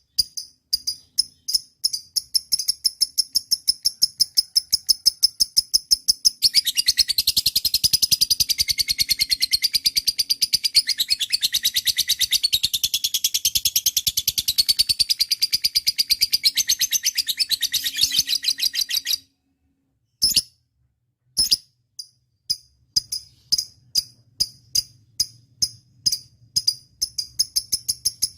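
Lovebird chirping in fast, repeated high calls, about three a second, that break into a long unbroken rapid chatter a few seconds in. The chatter stops suddenly after about twelve seconds; after a short pause with two lone chirps, the quick chirping starts again.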